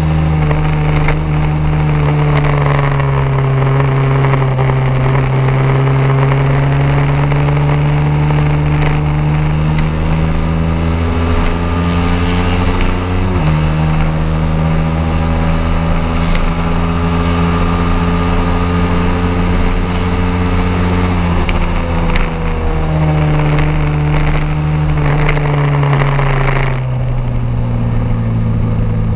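Honda CBR motorcycle engine running under way with wind noise, its pitch gliding with the throttle and shifting abruptly twice, about halfway through and again a little later. Near the end the engine's pitch falls as the throttle is closed.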